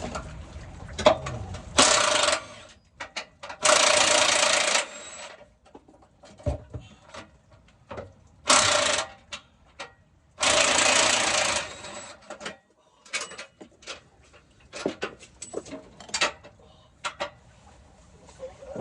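Cordless power tool running on bolts in four bursts of about a second each, two close together near the start and two more around the middle. Scattered clicks and clinks of hand tools fall between the bursts.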